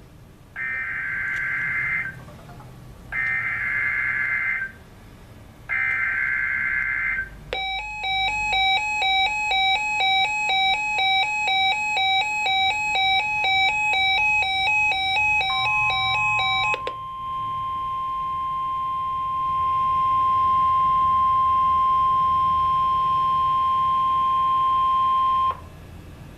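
Emergency Alert System weather-radio alert tones: three short bursts of screechy digital SAME header data, then pulsing alarm beeps at about two a second for nine seconds, then the steady 1050 Hz NOAA Weather Radio warning tone for about ten seconds, cut off sharply near the end. These tones signal an incoming alert, here a severe thunderstorm watch.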